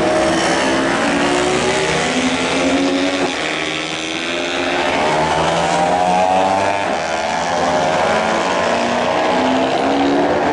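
Racing motorcycle engines running at high revs, several at once, their pitch rising and falling as they pass and change gear, with a dip a few seconds in before a rising engine note.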